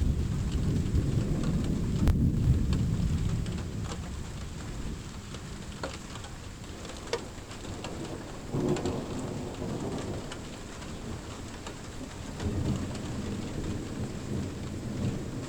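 Thunder rumbling over steady rain, with raindrops ticking. The rumble is loudest over the first few seconds and dies away, then two softer rolls of thunder come in later.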